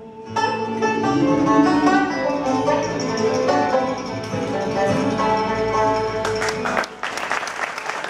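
Bluegrass banjo and acoustic guitar playing a short passage that stops about seven seconds in, followed by audience applause.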